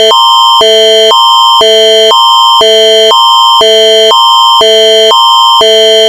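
Canadian Alerting Attention Signal (Alert Ready tone), loud, switching back and forth between a higher and a lower electronic tone chord about every half-second. It marks the start of an emergency alert broadcast.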